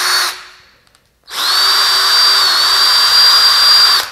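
Cordless drill spinning a stainless engine valve against a Scotch-Brite pad, scrubbing the rust off: a high motor whine over an abrasive hiss. It stops just after the start, is quiet for about a second, then runs again for nearly three seconds and stops near the end.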